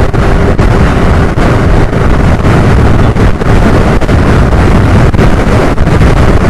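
Wind buffeting the microphone of a Suzuki scooter ridden at about 81 km/h: a loud, gusty rumble, with the scooter's engine and road noise beneath it.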